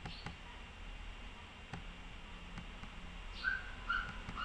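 Faint room tone with a few sharp clicks from a computer mouse. Several short high chirps come in near the end.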